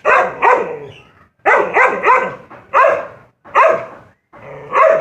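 Dog barking repeatedly at a cat: about eight loud barks, a quick pair at the start, a quick run of three in the middle, then single barks.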